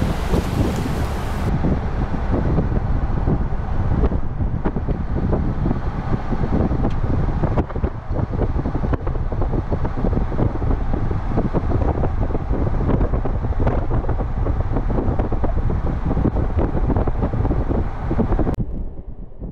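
Wind buffeting the microphone from a moving car, with a low road rumble underneath; the sound drops sharply near the end.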